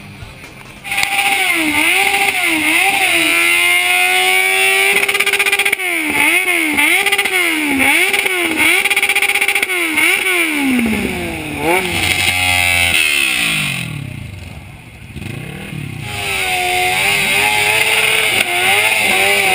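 Sport motorcycle engines revved hard again and again, the pitch shooting up and dropping back in quick blips, with one rev held high for a second or so, over a constant hiss. The revving falls away briefly about two-thirds of the way through, then starts again.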